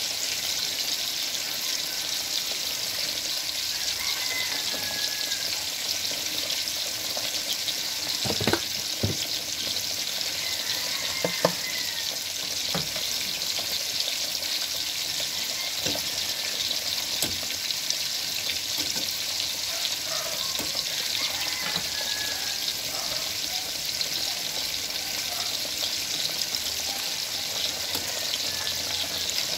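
Steady sizzling hiss of a pot cooking on the stove, with a few sharp clinks of a metal ladle against the steel pot as it is stirred, mostly around the middle.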